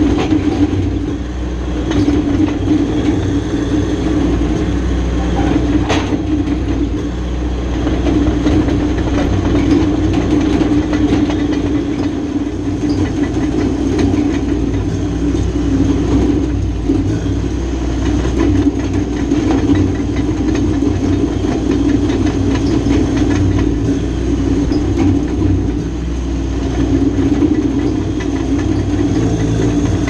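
John Deere 450J crawler dozer's diesel engine running steadily under load, with the clanking clatter of its steel tracks, heard close up from the operator's seat in the open cage.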